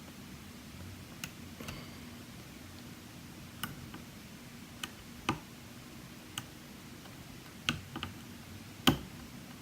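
Sparse, irregular small metallic clicks from a hook pick working the pin stacks of a lock under tension during single-pin picking, about nine in all. The loudest click comes near the end.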